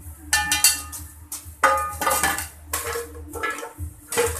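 A metal pan knocked and shaken against a plastic basin to empty out toasted corn bran: several clanks, each with a short metallic ring.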